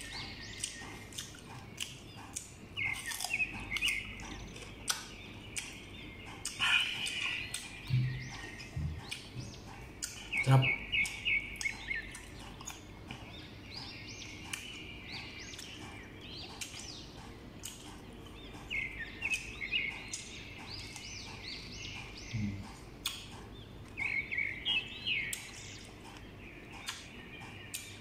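Close chewing of crisp, unripe green mango slices, with many short wet mouth clicks and crunches. A small bird twitters in quick chirping bursts several times.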